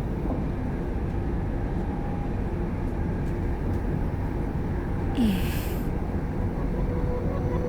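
Passenger train running, a steady low rumble, with a short hiss about five seconds in.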